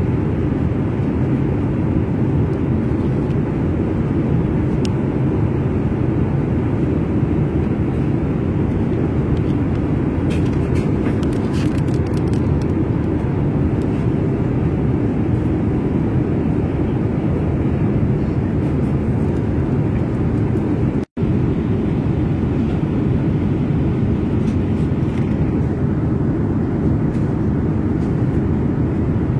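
Steady low cabin noise of an airliner in flight, with a split-second dropout about two-thirds of the way through.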